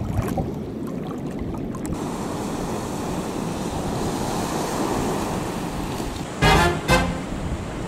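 Small waves breaking and washing up on a sandy beach, a steady surf hiss. Near the end, two short loud pitched sounds in quick succession stand out above the surf.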